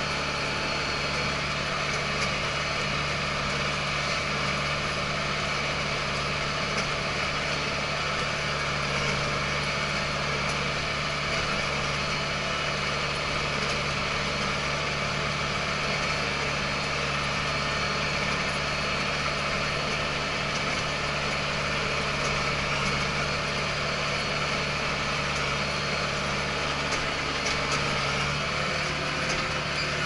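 Large farm tractor's diesel engine running steadily under load while pulling a rotary tiller, heard from inside the closed cab.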